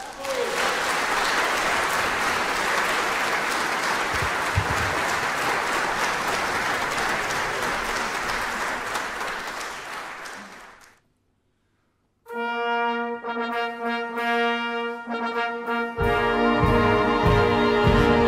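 Audience applause, fading out after about ten seconds. After a short silence the coal-mine brass band begins the introduction with sustained brass chords, and the full band comes in with a low beat about two seconds before the end.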